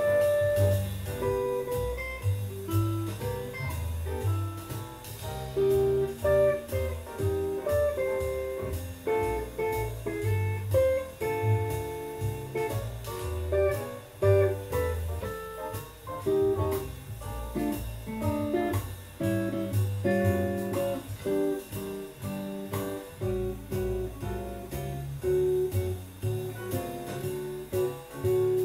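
Electric guitar played with a pick in a run of single-note melody lines, over a backing with a steady low bass line.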